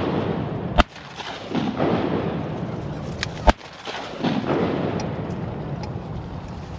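Two shotgun shots about two and a half seconds apart, fired at coots on the water. Between and after the shots come swelling bursts of rushing noise.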